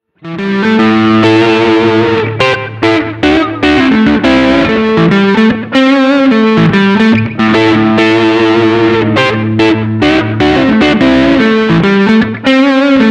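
Intro music led by guitar, coming in suddenly right at the start and playing loudly through a run of changing notes.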